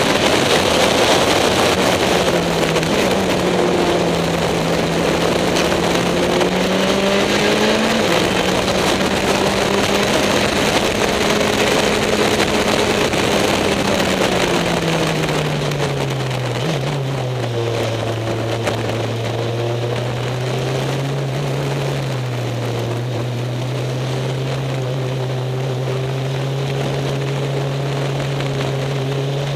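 Caterham SP/300.R race car's engine heard from the cockpit under wind rush, running at fairly steady revs on track. Its note climbs slightly a few seconds in, falls over a few seconds about halfway through, then holds steady at lower revs.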